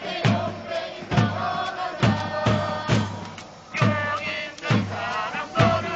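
Football supporters chanting a song together in unison, driven by a bass drum beaten about twice a second.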